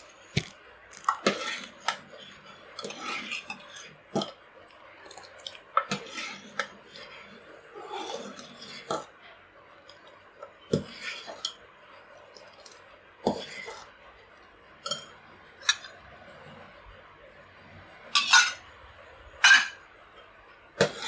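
Steel ladle stirring in a stainless-steel pot of milk that is curdling with lemon juice, scraping and clinking irregularly against the pot's side and bottom. The two loudest clinks come near the end.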